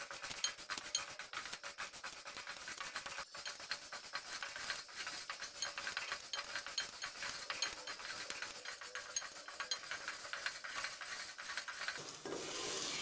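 Flat wooden spatula stirring oil-coated popcorn kernels in an aluminium pot, the kernels scraping and rattling across the metal bottom in a steady stream of fine clicks. The kernels are heating on a low flame and have not yet begun to pop.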